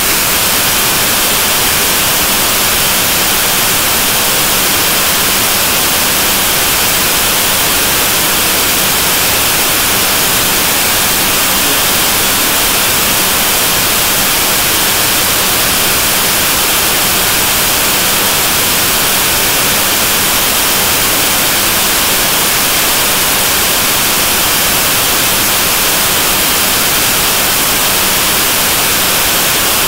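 Steady, loud hiss like static, strongest in the high range, with no other sound standing out.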